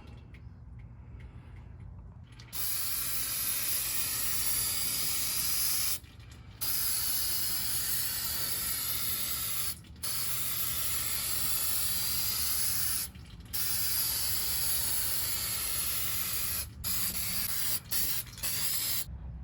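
Aerosol spray paint can hissing in long bursts of about three seconds each, with a few short squirts near the end.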